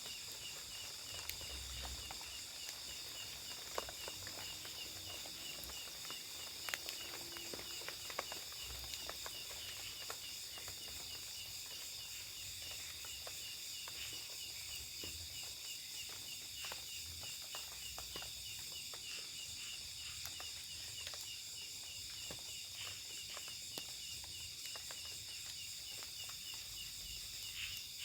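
Night chorus of insects such as crickets, a steady high shrilling with one voice pulsing in an even rhythm, with scattered faint ticks and clicks.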